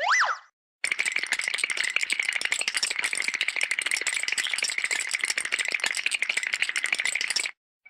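A short rising whistle-like glide, then a long, fast, even rattle of dense clicks that lasts several seconds and stops abruptly.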